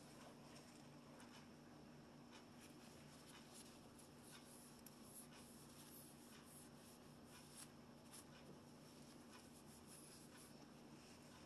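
Near silence: a low steady hum with faint, scattered small clicks and scratches through it.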